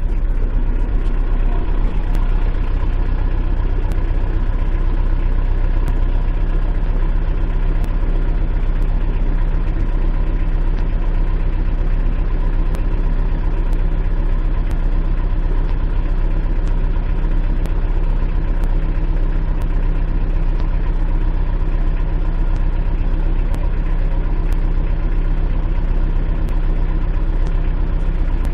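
Kubota Grand L5740 tractor's diesel engine running steadily, heard from inside the cab, with faint light ticks over it.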